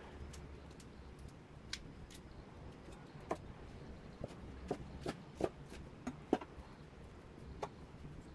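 Kitchen knife chopping lettuce on a bamboo cutting board: a run of about a dozen irregular sharp taps of the blade striking the wood, starting about three seconds in, loudest a little past the middle.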